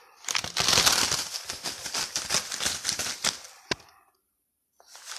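Shredded gift-basket filler crinkling and crackling as it is handled and pressed into a wicker basket, a dense run of small crackles for about three seconds, then a single sharp click and a short stop.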